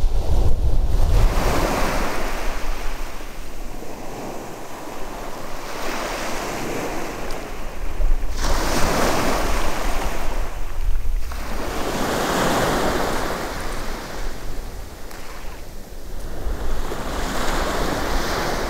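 Sea waves washing in and drawing back in slow surges every few seconds, with wind buffeting the microphone.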